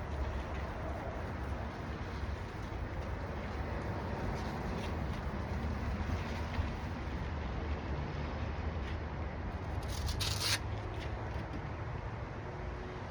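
Sandpaper rubbing on a plastic headlight lens during 1000-grit wet sanding, a steady scratchy hiss over a low rumble, with one short sharper hiss about ten seconds in.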